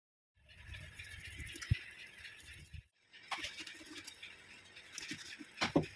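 Knife cutting a boal (wallago catfish) into steaks on a plastic cutting board: wet slicing and handling of the fish, with sharp knocks of the blade on the board about two seconds in, about three seconds in and near the end. The sound breaks off briefly near halfway.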